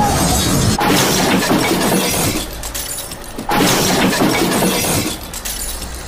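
Crash of a plastic toy dump truck tumbling over down a dirt slope: two loud, noisy crashing bursts that each start suddenly, about a second in and again about three and a half seconds in, each lasting about a second and a half.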